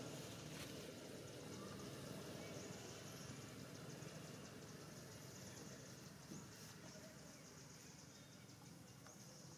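Faint outdoor background: a steady hiss with a high-pitched band, and a couple of faint clicks.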